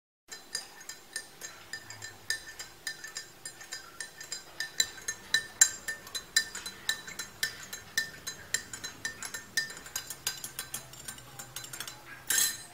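A drinking glass being stirred, the stirrer clinking against its sides in a quick, irregular run of light, briefly ringing clinks. A short, louder burst of noise comes near the end.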